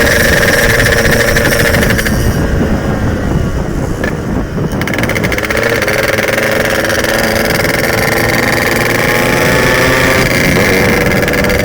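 Yamaha RX-King two-stroke single-cylinder motorcycle engine being ridden. The throttle is eased off about two seconds in, and the engine builds again from about five seconds in.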